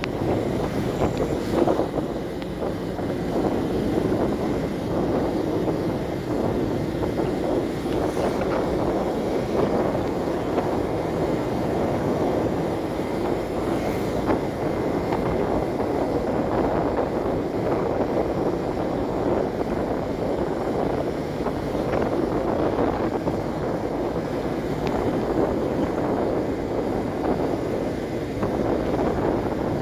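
Steady wind rush over the microphone of a motorcycle cruising at about 40 km/h, with road and engine noise underneath.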